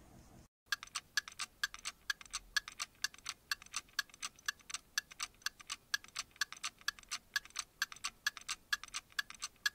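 Ticking-clock sound effect used as a timer: a steady, even tick-tock of about four ticks a second, starting under a second in and stopping just before the end.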